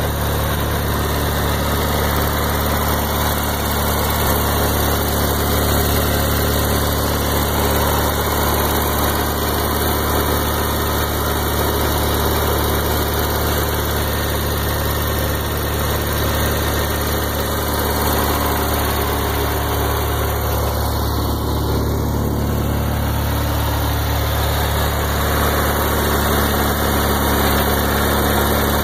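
Kohler Magnum 20 air-cooled twin-cylinder engine of a Simplicity 20 HP lawn tractor idling steadily with the hood up, its even running note unchanged throughout.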